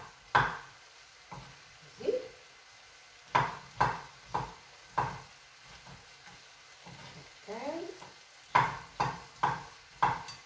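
Kitchen knife cutting large olives on a wooden cutting board: irregular sharp knocks of the blade striking the board, in short runs with a pause of a few seconds in the middle.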